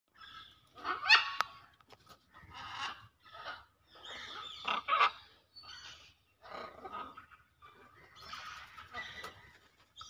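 Green-winged macaws squawking: a run of short, harsh calls with brief pauses between them, the loudest about a second in and again around five seconds.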